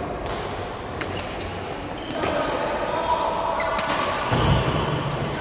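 Badminton rackets striking a shuttlecock in a rally: several sharp hits, echoing in a large hall, with a low thump about four seconds in and faint voices.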